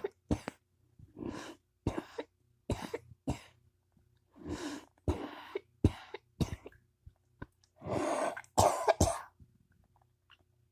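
A person coughing again and again in short bursts with brief gaps between them. The longest and loudest coughs come about eight and nine seconds in.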